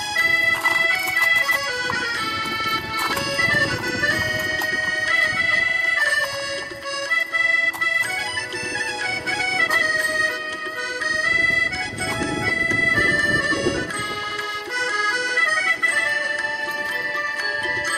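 Accordion music in a traditional style: held chords under a moving melody.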